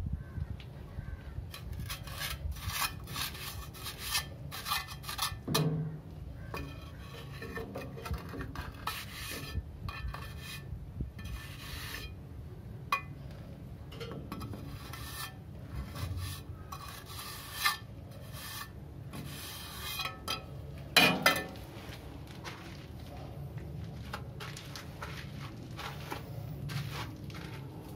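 A trowel scraping and smoothing wet cement mortar around a plastic pipe where it passes through the wall, sealing the gap, in repeated short strokes that thin out in the second half. A couple of sharper, louder scrapes or knocks come about three quarters of the way through.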